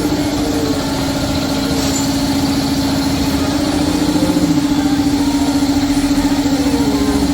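A small engine or motor running steadily, with a steady hum and a fast, even pulse.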